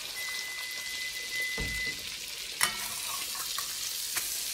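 Steaks sizzling in hot oil in an enamelled cast-iron pan while a metal spatula presses and scrapes them. There is one sharp clank of the spatula against the pan about two and a half seconds in.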